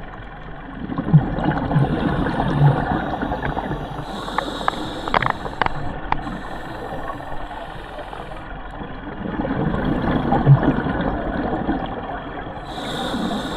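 Boat engine running with water gurgling and sloshing. The gurgling swells louder twice, once early and again a few seconds before the end, with a few sharp clicks.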